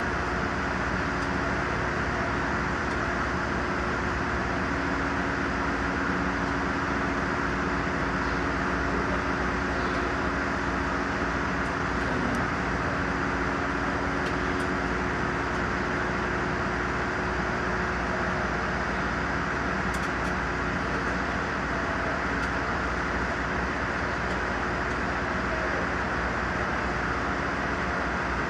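Mercedes truck diesel engine running steadily, a constant mechanical noise with a steady hum.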